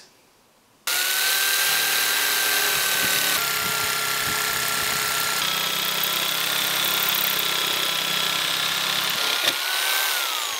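Budget corded electric jigsaw cutting a curve through a softwood (pine) board: a steady, high motor whine with the blade rasping through the wood, starting about a second in. Near the end the motor winds down in a falling whine.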